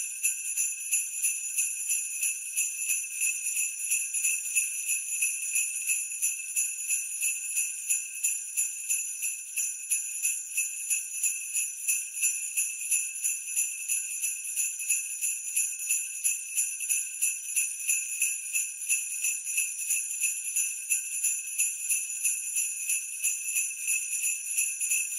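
Sleigh bells (jingle bells) shaken in a steady, even rhythm of a few shakes a second, a continuous bright jingling.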